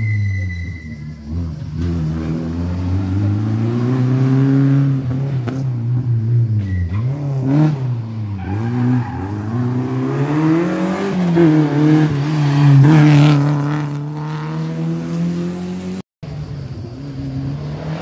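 A race car engine repeatedly revving up and falling back as the car accelerates and brakes through the slalom course. It grows louder as the car comes closer and is loudest about two-thirds of the way in. After a brief dropout near the end, an engine note holds steady.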